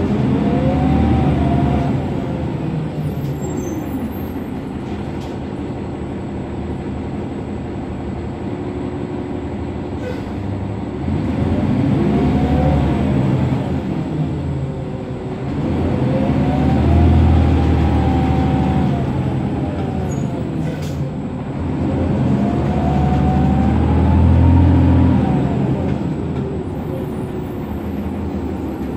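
Cummins ISM diesel engine of a 2007 New Flyer D60LFR articulated bus, heard from inside the cabin. It rises and falls in pitch four times as the bus speeds up and eases off, loudest in the middle of each pull.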